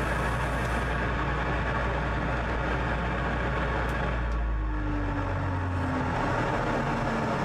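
Laser cutter's exhaust fans running with a steady rush of air. About four and a half seconds in, one fan winds down, its hum sliding lower in pitch, while the air noise carries on.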